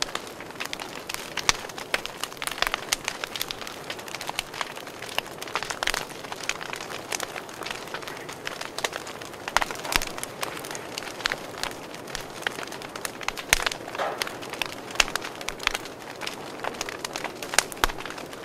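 Charcoal grill under skewered kebabs and chicken crackling and sizzling: irregular sharp pops and snaps over a steady hiss.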